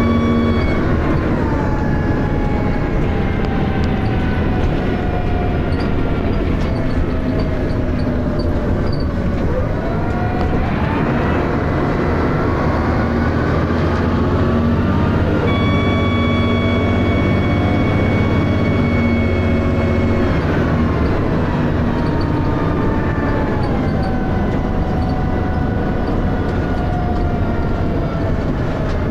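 Dennis Arrow bus's diesel engine and ZF automatic gearbox heard from inside the bus. The engine note falls slowly for several seconds, climbs again about ten seconds in, then falls away once more and picks up near the end. A steady high whine joins for a few seconds past the middle.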